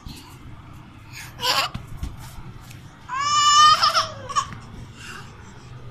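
A baby's high-pitched shriek, once for just under a second about three seconds in, with a shorter vocal sound about a second and a half in.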